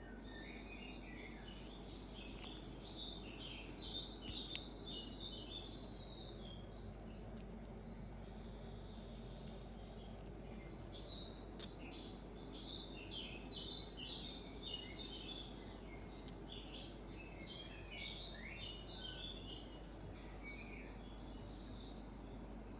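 Small birds chirping and calling in quick, overlapping high notes, busiest a few seconds in and again past the middle, over a steady low background hiss.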